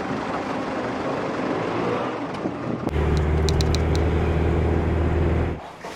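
Vehicle engine noise in the street for the first half; about halfway through a steady low engine hum starts abruptly, with four quick high chirps just after it begins, and cuts off suddenly shortly before the end.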